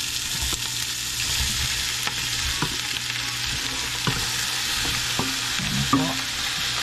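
Garlic and onion sizzling steadily in hot cooking oil in a pan, with a utensil knocking and scraping against the pan a handful of times as it is stirred.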